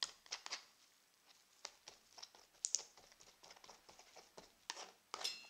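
Steel palette knife scraping and tapping on an oil-paint palette as thick paint is picked up and worked, a scattered run of light clicks and short scrapes.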